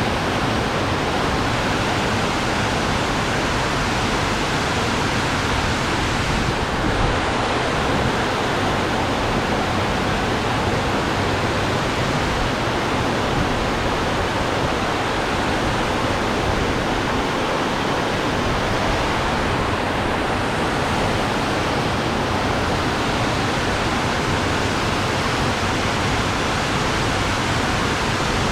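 Storm-swollen water rushing past, a loud, steady, even rush with no breaks.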